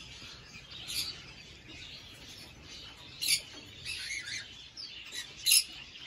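Cockatiels chirping: scattered short, high calls, the loudest about three seconds in and another near the end.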